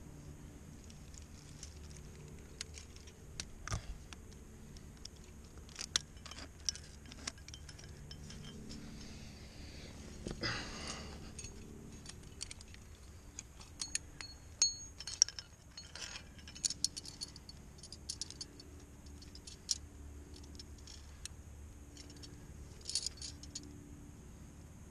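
Metal climbing gear on a harness rack, carabiners and trad protection, clinking and jangling in scattered bright clicks as the climber moves. There is a brief scrape about ten seconds in.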